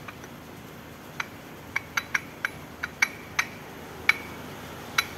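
Metal parts clicking and clinking about ten times at irregular spacing, each click with a brief ring, as a synchronizer is turned by hand against its gear on a ZF 16S2531 truck gearbox mainshaft to find its seating position.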